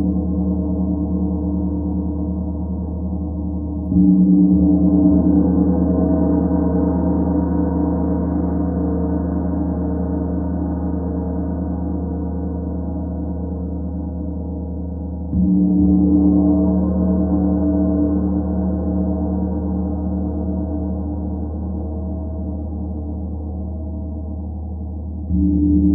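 Large star-patterned Starchild gong struck with a soft mallet three times, roughly every ten seconds. Each stroke rings on in a long, slowly fading low hum, its higher overtones swelling a few seconds after the stroke.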